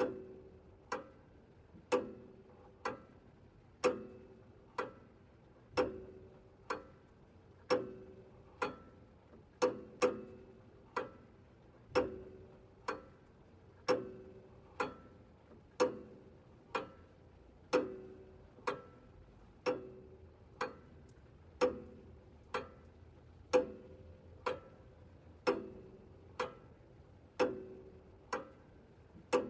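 Pendulum wall clock ticking steadily, about one tick a second, the ticks alternating a little stronger and weaker in a tick-tock pattern, each with a short ring.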